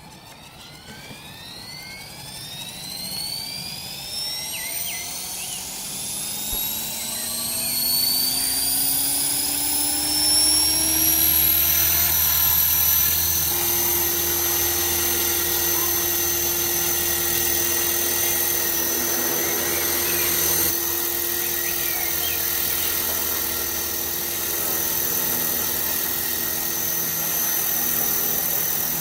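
Align T-Rex 450 electric RC helicopter spooling up: a motor-and-rotor whine that rises in pitch for about twelve seconds, then holds steady.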